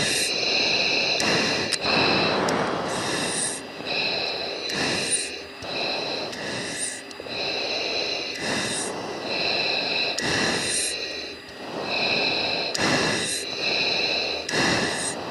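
Breathing through an F-16 pilot's oxygen-mask microphone on the cockpit intercom: a regular rush of breath about every one and a half to two seconds over a steady high whine.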